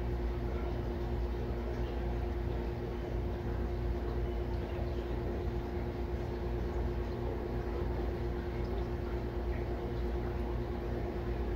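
Aquarium pump running: a steady hum with one constant tone over a low rumble and a faint watery hiss.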